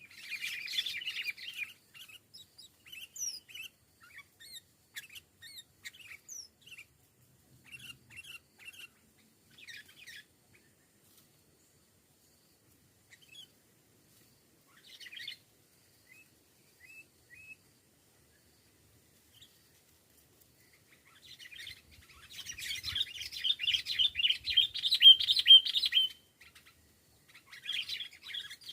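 Sooty-headed bulbuls calling: scattered short chirps, with a burst of rapid chattering calls at the start and a longer, louder bout of chattering about three quarters of the way through.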